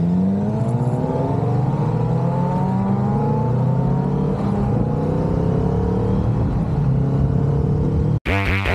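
Kawasaki Vulcan S 650's parallel-twin engine under way, rising in pitch as it accelerates over the first few seconds, then running fairly steadily. Near the end it cuts off abruptly into rock music.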